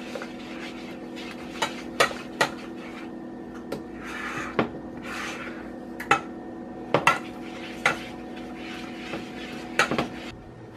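A utensil clinking and scraping against a small saucepan as a flour-thickened sauce is stirred, in irregular knocks, over a low steady hum.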